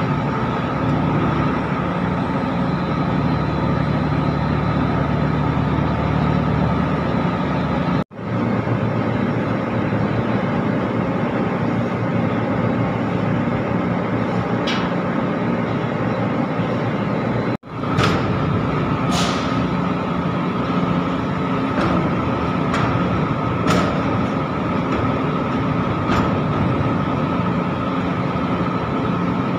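Container crane machinery running during cargo handling: a steady hum with a high whine over it, and a few sharp metallic knocks.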